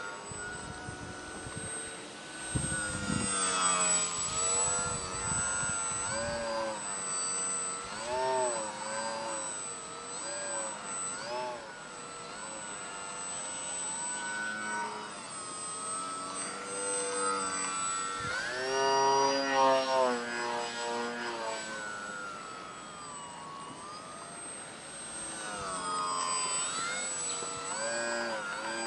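Grayson Hobby GH2217-09 brushless motor and 10x5 propeller of a foam-board RC plane whining in flight, its pitch rising and falling as the throttle is worked through 3D manoeuvres. It is loudest about two-thirds of the way through, as the plane passes close.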